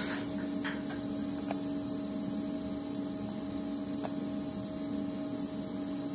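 Steady electrical hum with a faint hiss, and a couple of faint clicks, the first about a second and a half in and another about four seconds in.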